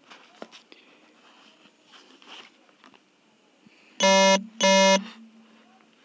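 Two loud, short buzzing beeps at the same flat low pitch, about four seconds in, half a second apart, with faint clicks before them.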